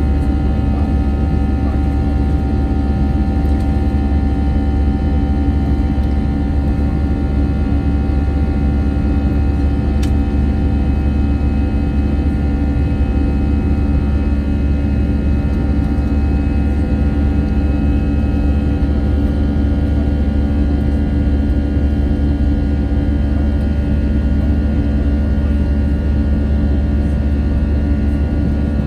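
Steady cabin noise inside an Airbus A320 in flight: engine and airflow drone with a deep rumble and several steady hums above it.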